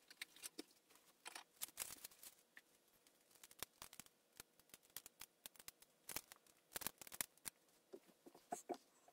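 Near silence broken by faint, scattered small clicks and light rustles: craft supplies being rummaged through for a packet of dimensional adhesive.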